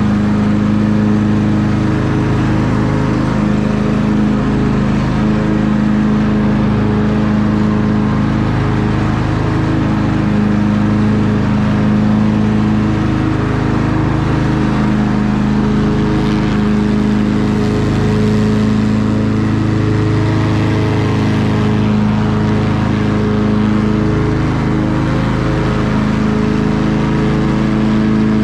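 Craftsman riding mower's newly swapped-in engine running steadily at a constant speed while the mower mows.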